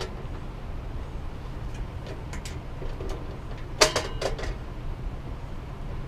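Pliers clicking and clinking against metal while tightening nuts on a ceiling fan's motor housing: a few light clicks, then one sharp clink about four seconds in, over a steady low hum.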